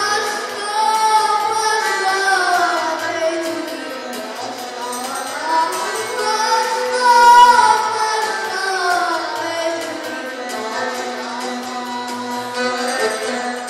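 A boy singing a Bosnian sevdah song into a microphone, accompanied by accordions. His voice slides up and down through long, ornamented notes.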